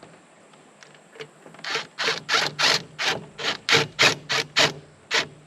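Hand ratchet with a 9/16 swivel socket and extension working a fan bolt loose, clicking in quick back-and-forth strokes about three times a second, starting about a second and a half in.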